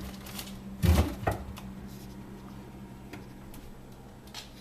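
Two loud knocks about a second in, with a few faint clicks, over a steady low hum: a dog moving about inside an open refrigerator and knocking against its shelves and contents.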